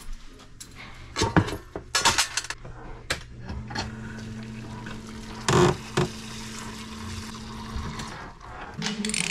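Small metal parts clattering into the tray of a parts-washer tank and being rinsed there, over a steady hum and running liquid from the washer; the hum stops near the end.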